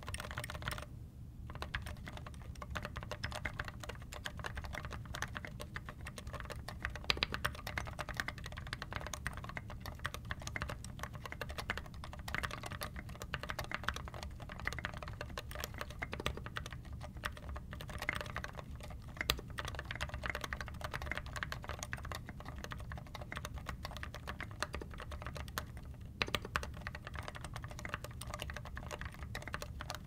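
Steady, fast typing on a custom 60% mechanical keyboard (Grid 600 case, DZ60RGB PCB) fitted with lubed Gateron Ink linear switches on an acrylic plate with dampening foam. The keystrokes come in a dense, uneven stream of clicks.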